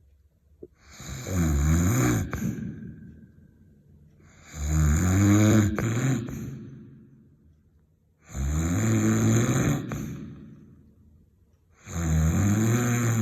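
Heavy snoring: four long snores at an even pace, one about every three and a half to four seconds. Each rises quickly, holds for a second or two, then trails off before the next.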